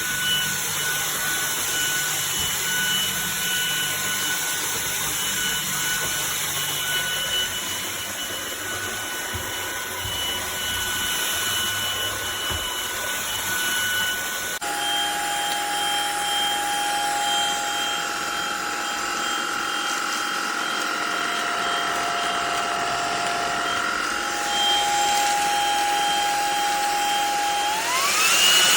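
Cordless stick vacuum cleaner's motor running with a steady high whine. About halfway through, the sound changes abruptly to a lower-pitched whine. Near the end the motor's pitch rises quickly as it speeds up.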